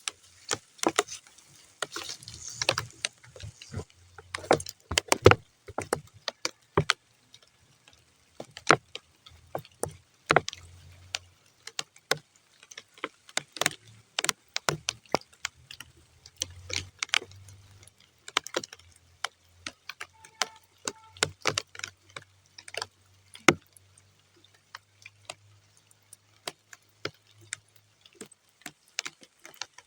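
Raindrops falling on muddy ground, landing as scattered, irregular taps and splats, a few a second and uneven in strength, not a continuous downpour. A low hum comes and goes underneath.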